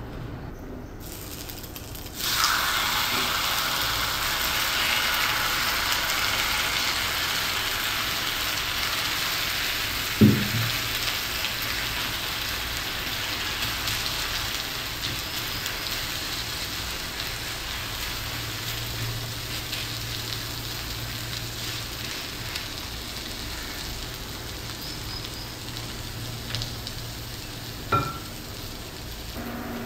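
Vegetable-and-egg omelette mixture frying in hot oil in a cast iron skillet: a dense sizzle that starts suddenly about two seconds in as the mixture hits the oil, then slowly eases off. Two sharp knocks, one about ten seconds in and one near the end.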